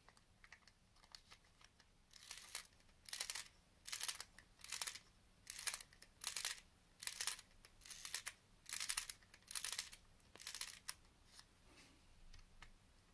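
LEGO Yellow Wind-Up Motor being wound with its red key: about a dozen short bursts, a little under one a second, one for each twist of the key as the spring is tightened.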